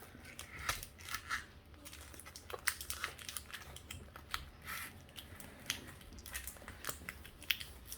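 Foil wrapper of a Pokémon trading-card booster pack crinkling and crackling in irregular bursts as it is opened by hand.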